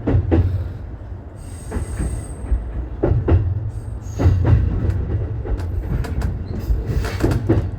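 JR East E233-series electric train heard from inside the car while running: a steady low rumble with scattered clicks of the wheels over rail joints.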